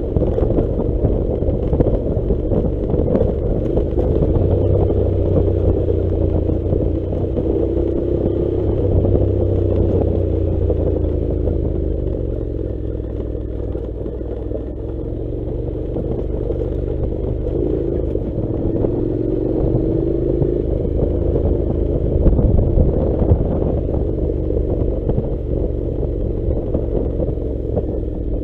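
Honda NC700 motorcycle's parallel-twin engine running at low revs, its pitch sagging and rising gently, about halfway through and again toward the end. Frequent clatter and knocks come from the bike jolting over a rough dirt track.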